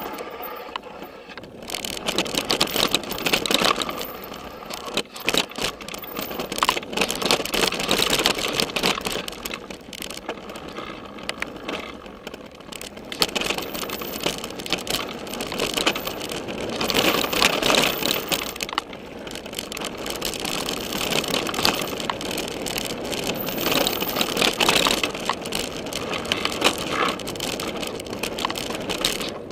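Downhill mountain bike ridden fast over a rocky dirt track: tyres crunching over dirt and stones, with continuous rattling and clattering from the bike, coming in louder surges over the rougher sections.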